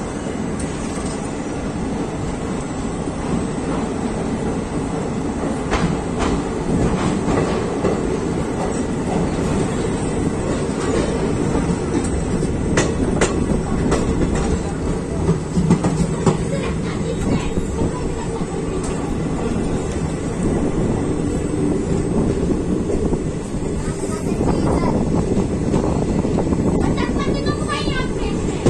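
Indian Railways ICF passenger coach running on the rails, heard from on board: a steady wheel rumble with scattered rail-joint clicks as the train pulls out of a station, slowly growing louder. A brief wavering sound comes in near the end.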